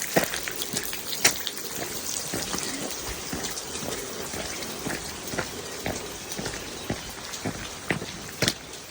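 Rain falling: a steady hiss with irregular close drop taps.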